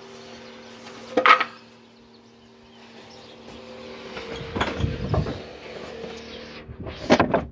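Wooden planks being handled: a sharp knock about a second in, a rough low shuffling in the middle, and a quick run of knocks near the end, over a steady hum.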